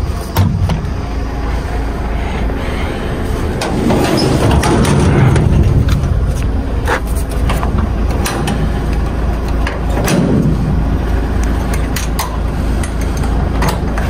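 DAF XF 510 truck running, a steady low engine and road rumble with scattered knocks and rattles, swelling about four seconds in and again about ten seconds in.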